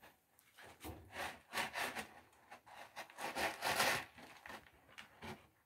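A kitten scratching and digging in pellet cat litter in a plastic litter box, an uneven run of quick scraping strokes that grows loudest about two thirds through; it is digging out a spot to pee.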